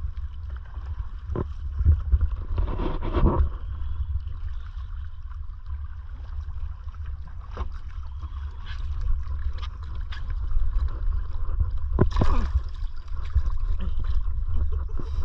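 Water lapping and gurgling against a small wooden outrigger canoe, with a low wind rumble on the microphone and scattered knocks and splashes, the loudest about twelve seconds in.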